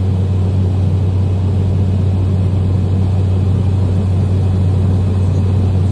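Steady drone of a Cessna 208 Caravan's single PT6A turboprop engine and propeller, heard inside the cabin in flight.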